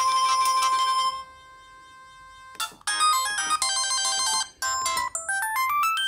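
Samsung SGH-X160 flip phone playing built-in ringtone previews through its small speaker. One electronic ringtone melody cuts off about a second in; after a short pause and a click, a second, quicker melody of rapid notes starts.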